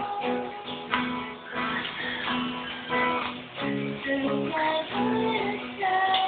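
Acoustic guitar strummed and picked, with a young female voice singing a song along with it.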